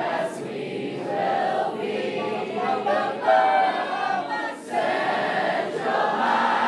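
A group of teenagers singing a song together, with a brief pause about two-thirds of the way through.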